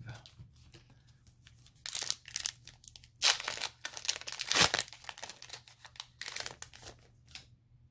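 Foil wrapper of a Pokémon Trading Card Game Sun & Moon booster pack crinkling and tearing as it is opened by hand, in three bursts of rustling with quiet between them.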